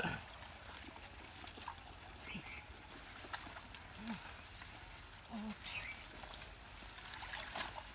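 Faint trickling and splashing of pond water with rustling of water hyacinth leaves as people wade and haul a net through them, with scattered small clicks and a few brief murmured voice sounds.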